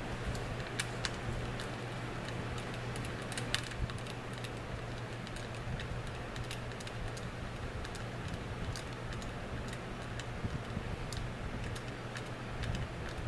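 Scattered light metallic clicks and ticks of small tools as a set screw is driven in to hold the forward edge of an AR-15-pattern carbine's trigger guard, over a steady low hum. The clicks come thickest in the first few seconds, then thin out.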